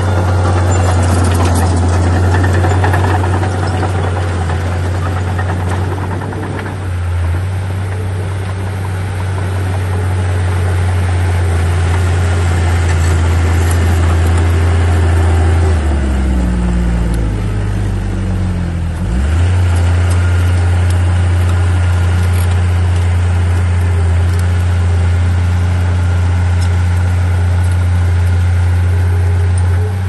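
Komatsu D37P crawler bulldozer's diesel engine running steadily at working speed. A little past halfway its note falls over a few seconds, dips briefly, then picks back up to its steady speed.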